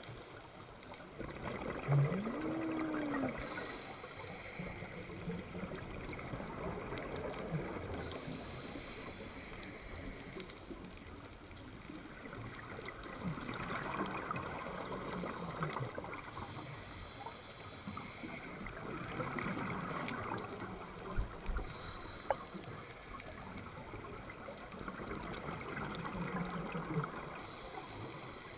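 Scuba diver breathing through a regulator underwater: a bubbling rush of exhaled air that recurs about every six seconds. About two seconds in there is a short rising-then-falling squeak.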